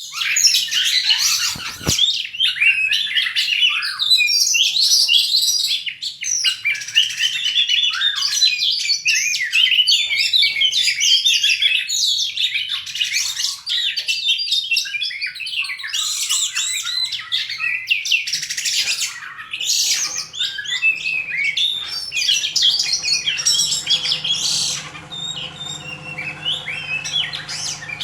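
Two oriental magpie-robins singing against each other in a song duel, an unbroken stream of rapid, varied whistles, trills and chattering phrases that includes their learned, mimicked song material.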